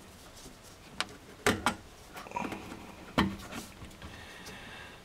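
Handling noise of a metal hose clamp and rubber fuel fill hose being worked at a fuel tank's filler neck: a few sharp clicks and knocks with light rustling, the loudest about a second and a half in and again just past three seconds.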